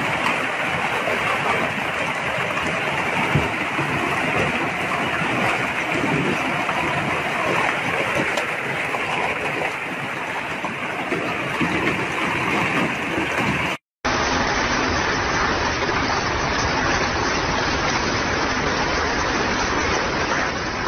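Heavy hailstorm downpour: hail and rain falling hard onto the street, a dense steady noise. About 14 s in it cuts off briefly and carries on duller.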